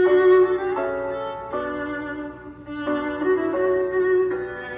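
Music led by a violin or bowed strings, a melody of held notes changing about once a second, played back through the Sony Dream Machine ICF-CD815 clock radio's speaker.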